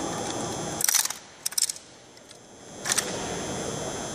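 Drill rifles handled by a rifle squad in unison during the manual of arms: a cluster of sharp clacks about a second in, two more about half a second later, and one more near the end.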